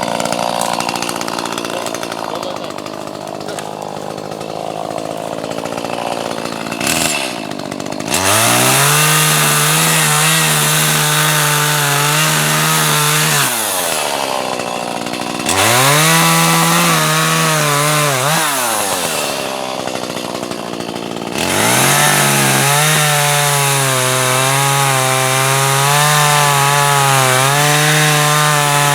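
Chainsaw cutting wood. About eight seconds in it goes to full throttle, drops back, and revs up twice more. In the last cut the pitch wavers as the chain bogs in the wood.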